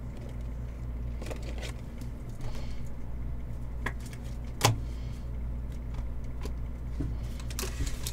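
Panini Prizm WWE trading cards being handled and flicked through at a desk: a few light, sharp clicks and taps spaced irregularly, over a steady low hum.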